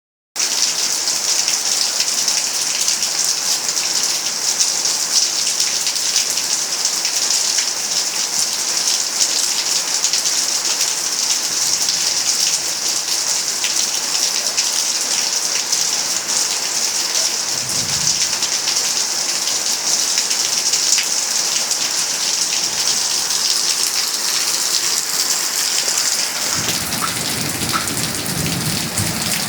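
Rain falling steadily, a continuous hiss of drops striking surfaces. A brief low rumble comes partway through, and another low rumble sets in near the end.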